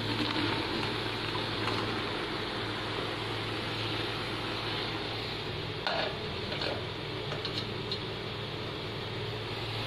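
Chopped ridge gourd tipped from a steel colander into a pressure cooker of frying masala, over a steady sizzling hiss. A few light metallic clinks from the colander come about six to eight seconds in.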